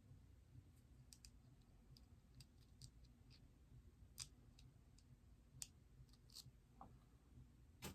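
Faint, scattered clicks and taps of packaging being handled while a bobblehead is unpacked, over near silence.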